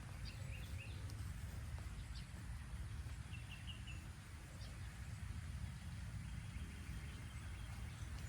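A few faint, short bird chirps over a low, steady rumble.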